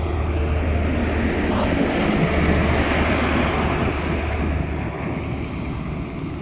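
Class 43 HST power car's diesel engine working hard as it pulls the train away and passes close by, with a strong low hum; it is loudest about two to three seconds in and eases off near the end as the coaches roll past.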